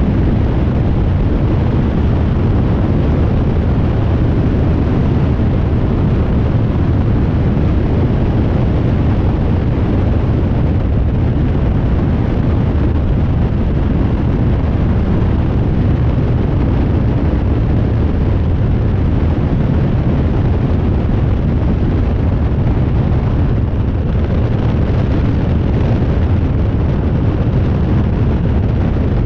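Coyote ultralight aircraft in steady cruise: a continuous roar of engine and rushing air over a wing-mounted camera, unchanging throughout.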